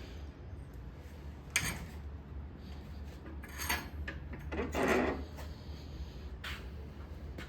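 A hand file scraping the steel tang of a slipjoint knife blade in about four separate short strokes, the longest and loudest one just before the middle. A low steady hum runs underneath.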